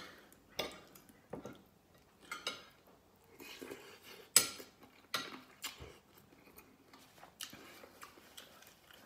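Metal spoon and fork clinking and scraping against a ceramic dinner plate while scooping rice and soup, a string of separate sharp clinks with the loudest about four and a half seconds in.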